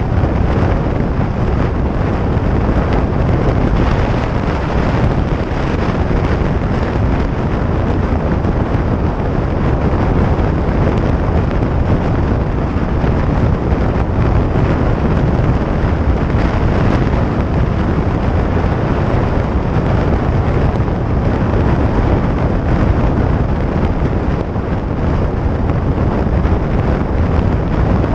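Steady wind rush buffeting the microphone, mixed with the running of a 2017 Harley-Davidson Iron 883's air-cooled V-twin at highway speed. The sound stays even and loud throughout.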